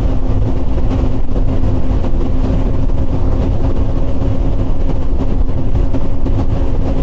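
Twin Mercury Racing 400R V10 outboard engines running at a steady speed under way, a constant drone with a steady low hum. Wind and water rush sound over it.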